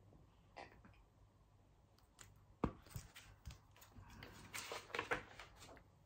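Faint handling noises from a hardcover picture book being closed and put aside: scattered light knocks and rustles, with a sharper knock about two and a half seconds in and a cluster of rustling ticks near the end.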